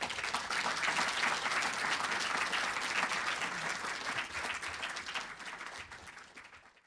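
Audience applauding, a dense patter of many hands clapping that gradually dies down and fades out near the end.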